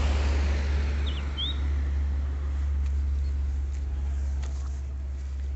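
Road traffic noise from a passing vehicle fading away over a steady low rumble, with a short bird chirp about a second in and a few faint clicks later.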